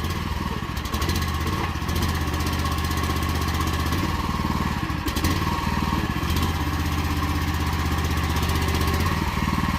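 Predator 420 single-cylinder gas engine on a towable backhoe running steadily, driving the hydraulic pump while the bucket is worked.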